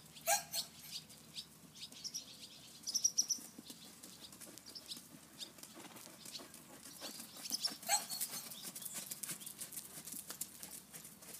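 Small birds chirping in short, scattered calls, with irregular soft clicks and rustles that grow busier in the last few seconds.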